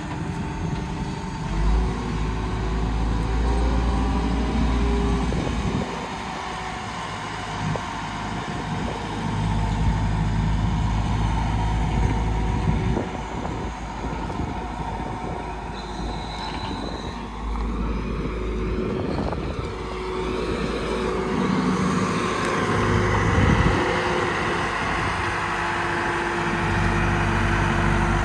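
Caterpillar IT14G wheel loader's diesel engine running as the machine drives and turns, growing louder and softer several times.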